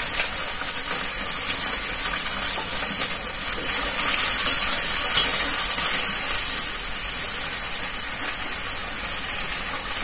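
Chili soybeans in a cornflour-thickened sauce sizzling in a metal wok as they come to the boil, with a spatula stirring through them and a few sharp taps of the spatula on the pan around the middle.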